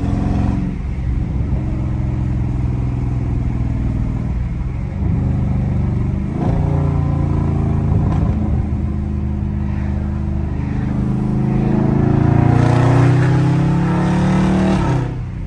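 Straight-piped, catless Dodge Charger Scat Pack's 392 HEMI V8 exhaust, heard from the cabin with the windows down, pulling through the gears. The revs climb and drop several times, then make a longer climb in the last few seconds that falls away just before the end.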